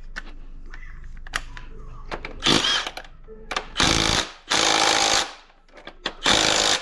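Impact wrench running bolts down in four short bursts, each about half a second long, the last two close together near the end.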